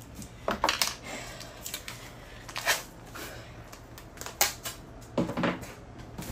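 Adhesive tape ripped off its roll and torn into strips: a series of short, sharp rips.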